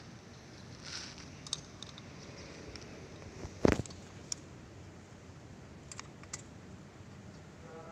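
Scattered small clicks and knocks of gloved hands and a tool handling a chainsaw's bar and chain, with the engine not running. One sharp knock, much louder than the rest, comes about three and a half seconds in.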